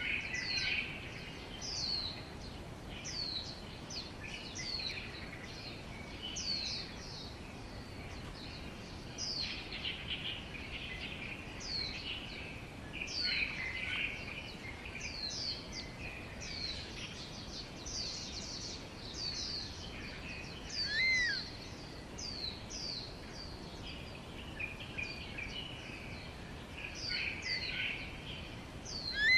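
Small birds chirping over steady background noise: short, high notes sliding downward, repeating every second or so. A louder, looping call comes about 21 seconds in and again at the very end.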